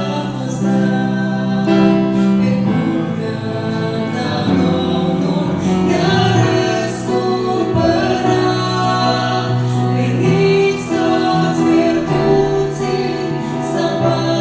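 Vocal trio of two women and a man singing a slow Christian worship song in harmony through microphones, with long held notes.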